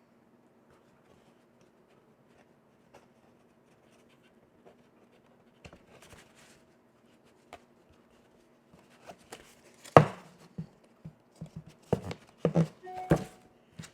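Hands working cardstock and small craft parts: scattered light taps and clicks that get louder and closer together in the last few seconds, over a faint steady hum.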